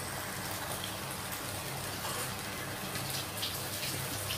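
Saucy chicken stir-fry sizzling and bubbling on high heat in a nonstick pan: a steady frying hiss with small crackles and pops, over a low steady hum.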